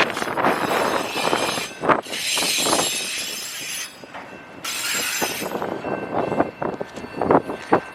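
Autorack freight cars rolling past on steel wheels, a steady rumble broken by short knocks, with two stretches of high hissing rail noise in the middle.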